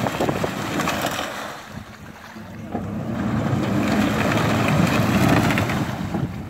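Mitsubishi Pajero 2 engine revving while stuck in deep mud and water, its wheels spinning and churning the mud. The revs drop briefly about two seconds in, then build up and ease off near the end.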